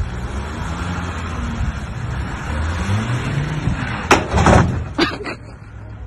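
Flatbed tow truck's engine running and revving up as the truck slides on snow, then a loud bang about four seconds in and a shorter knock about a second later.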